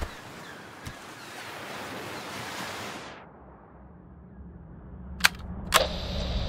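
Ocean-wave sound effect of surf washing, filtered darker and fading out about halfway through. Then two sharp clicks about half a second apart, as a low hum swells in ahead of the music.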